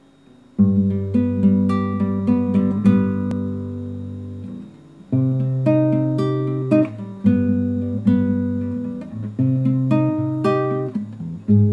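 Solo classical guitar playing: a chord struck about half a second in, then picked chords and single plucked notes that ring on. It dies away briefly near the middle before the playing picks up again.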